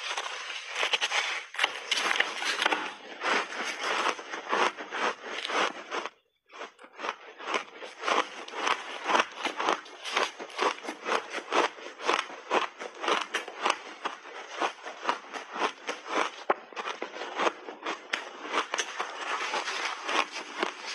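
Rapid, dense crunching of a block of refrozen ice with mixed berries as it is bitten and chewed close to the microphone. The crunching breaks off for a moment about six seconds in.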